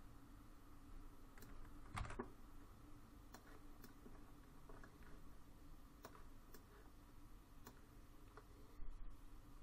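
Faint, scattered clicks of a computer mouse and keyboard, about one every second or so, the strongest about two seconds in, over a low steady hum.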